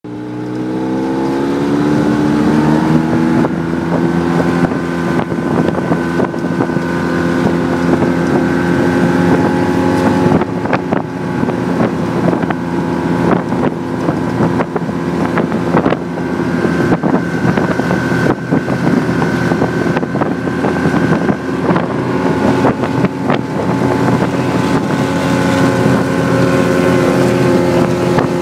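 Ski-Doo snowmobile engine running under way, its pitch climbing over the first couple of seconds as it accelerates, then holding a steady drone with small rises and falls. Wind buffets the microphone, and short knocks come through here and there.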